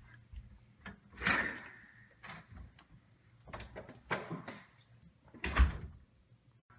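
A door being opened and shut: a few separate clunks and knocks, the loudest a heavy thump near the end.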